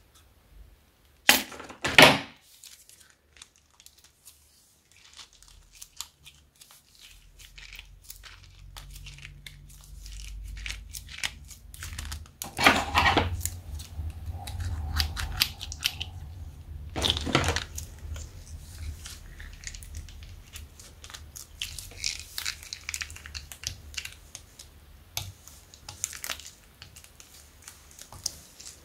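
Scissors snipping through a plastic piping bag, two sharp cuts near the start and more later on, while the bag crinkles and the bead-filled crunchy slime crackles and squishes as it is squeezed out of the tip.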